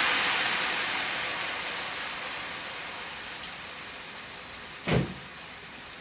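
White wine hissing in a hot sauté pan of onions, garlic and artichoke hearts as the pan is deglazed, lifting the browned bits off the bottom. The sizzle starts strong and fades steadily, with a brief knock about five seconds in.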